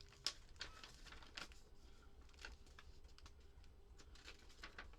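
Faint, scattered light clicks and rustles of small parts and their packaging being handled on a workbench, over a faint steady low hum.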